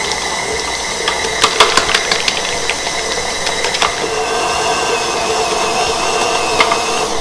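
KitchenAid Heavy Duty stand mixer running with a steady motor whine as its dough hook kneads bread dough, with irregular knocks and rattles throughout. The dough is in its final kneading with the butter worked in, being mixed up to the windowpane stage. About four seconds in, the whine shifts slightly higher.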